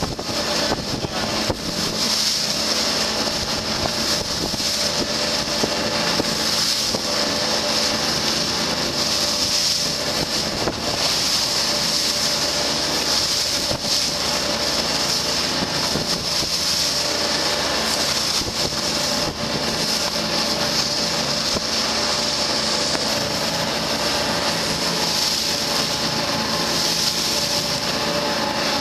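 A 44 ft motor lifeboat's diesel engines running steadily under way, under the rush of the bow wave and spray along the hull, with wind buffeting the microphone.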